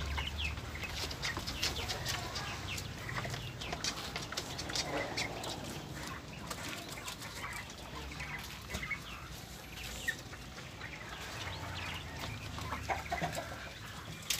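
A cage of young chickens and quails calling: many short cheeps and clucks scattered throughout.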